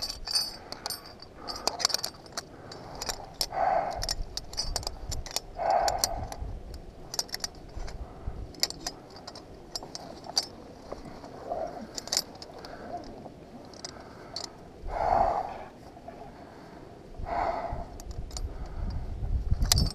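Aluminium carabiners clinking against steel bolt hangers and against each other as a climber clips into a two-bolt anchor and sorts the rope, making many small, irregular metallic clicks.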